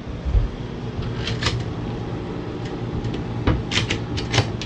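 Wooden cupboard doors with push-button latches being handled: sharp clicks and knocks, a pair about a second in and a quick cluster near the end, as doors are pushed and latched. A steady low hum runs underneath.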